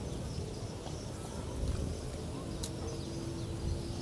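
Low wind rumble on the microphone, with faint bird chirps above it and one brief sharp tick about two-thirds of the way through.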